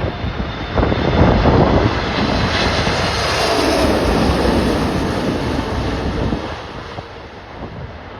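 Jet airliner passing low overhead on final approach to land. Its engine noise swells to a peak about three to four seconds in, drops in pitch as it passes, then fades away. Gusts of wind buffet the microphone in the first couple of seconds.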